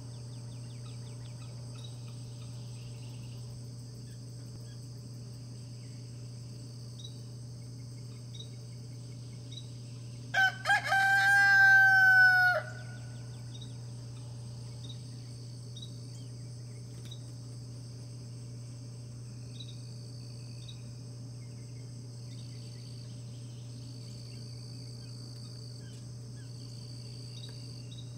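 A rooster crows once, about ten seconds in: a couple of short notes, then one long held note. A steady high insect drone and a low hum run underneath.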